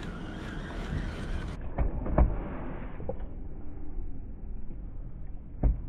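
Wind buffeting the microphone on a fishing kayak, cut off suddenly after about a second and a half, leaving a duller low rumble with a few dull knocks, the loudest about two seconds in and another near the end.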